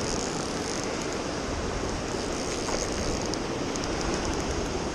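Steady rushing of shallow river rapids, an even wash of water noise.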